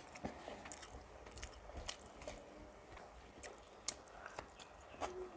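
Close-miked chewing and mouth sounds of a person eating a rice meal with curry: soft, irregular wet smacks and clicks.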